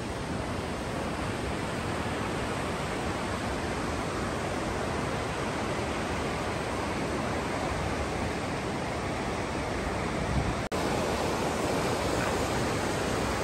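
Steady rush of water from the Bheri River, an even noise with no tones in it, broken once by a brief dropout about ten and a half seconds in.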